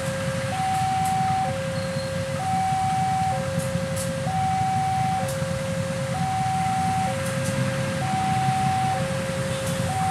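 Railway level-crossing warning alarm sounding a two-tone electronic chime, a high and a low note alternating about once a second, over the steady low rumble of a CC 203 diesel-electric locomotive's engine as it hauls its train past.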